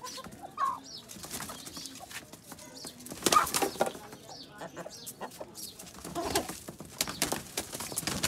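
Chickens' wings flapping in several short bursts, the loudest about three seconds in, with a few brief clucks.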